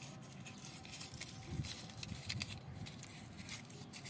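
Faint rustling and scattered light ticks of handling, over a steady background hiss.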